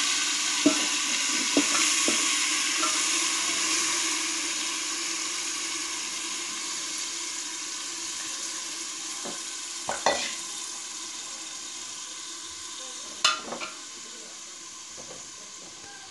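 Marinated chicken frying in hot oil in a pressure cooker: a steady sizzle that slowly dies down. A few sharp knocks against the pot come through, the loudest about ten and thirteen seconds in.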